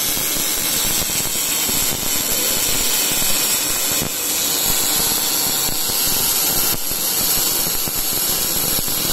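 MIG welding arc from an inverter welder running at about 105 amps and 19 volts, crackling steadily, with brief dips in level twice.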